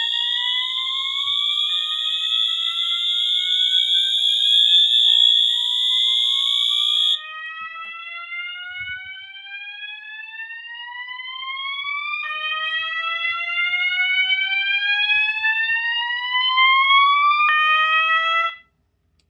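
Two fire alarm horns sounding together: a Wheelock MT horn on a steady, continuous high tone and a System Sensor 980A MASS on slow whoop, long rising sweeps that keep restarting from low. The steady horn stops abruptly about seven seconds in, the whooping sweeps carry on, and everything cuts off shortly before the end.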